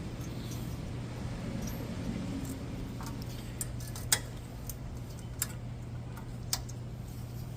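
A few sharp metal clicks and ticks as brake pads and their spring clips are handled, the loudest about halfway through, over a steady low hum.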